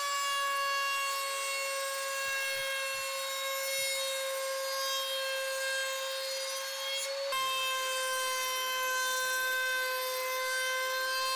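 Table-mounted router running with a steady high whine as a bearing-guided profiling bit cuts along the edge of a pine board.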